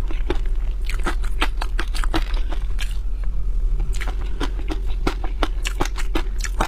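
Raw shrimp being eaten close to the microphone: irregular sharp crackles and clicks of shell, several a second, over a steady low hum.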